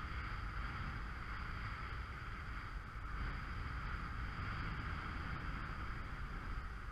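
Steady rush of wind and water while kitesurfing over choppy sea, with wind buffeting the camera microphone. A faint steady high whistle runs above it.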